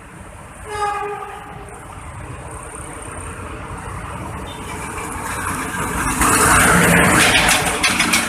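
GE U15C diesel locomotive hauling a passenger train sounds its horn once, briefly, about a second in. Its engine then grows steadily louder as it approaches and passes close by, with wheels clattering over the rail joints near the end.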